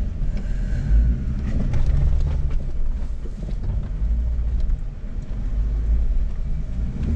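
Low, continuous rumble of a Jeep Rubicon's engine and drivetrain heard from inside the cabin as it crawls over rock, swelling and easing, with scattered small clicks and knocks.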